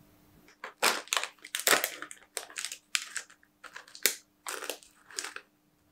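Plastic snack packet of animal biscuits crinkling as it is handled and opened: a run of short, sharp crackly rustles.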